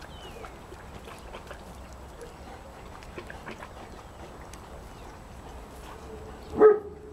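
A large mastiff-type dog gives one short, deep bark near the end, over a low background with faint scattered clicks.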